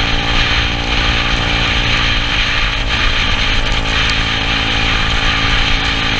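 Yamaha Cygnus scooter's single-cylinder engine running steadily at cruising speed, under a constant hiss of wind and wet road noise.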